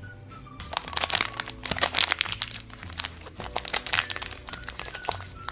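Plastic and foil packaging of a Shopkins blind basket crinkling in quick, irregular crackles as it is handled and opened, beginning about a second in, with soft background music underneath.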